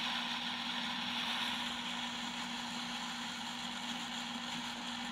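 Steady background hiss with a low, even hum underneath and no distinct events: room tone of the recording.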